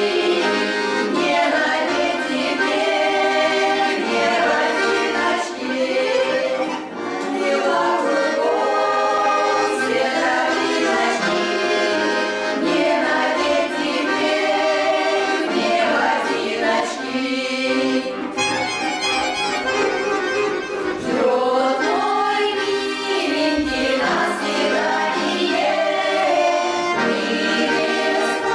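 Folk ensemble performing a song: a choir singing with accordion accompaniment.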